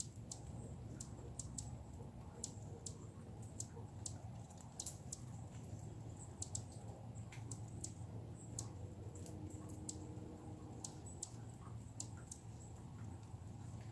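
Irregular sharp, high clicks, a few a second, over a steady low outdoor rumble.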